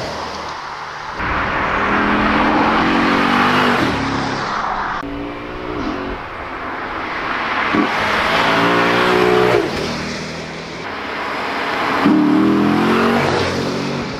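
Lexus IS F's 5.0-litre V8 accelerating hard, its note rising through the revs several times. Each run is broken off abruptly.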